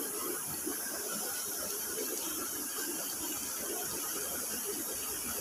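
Steady hiss of outdoor background noise, with a constant high-pitched drone above it and no distinct events.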